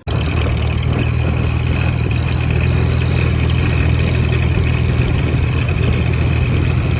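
1947 Farmall H tractor's four-cylinder engine running steadily, loud and close.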